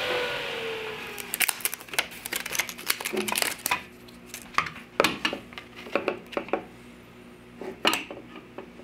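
Table saw winding down after being switched off, its whine falling in pitch and fading over the first second or so. Then a run of light clicks and taps as a metal combination square and a strip of wood are handled on the saw's table.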